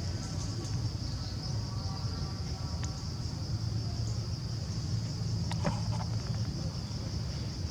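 Steady, high-pitched insect drone over a continuous low rumble, with a short burst of clicks about five and a half seconds in.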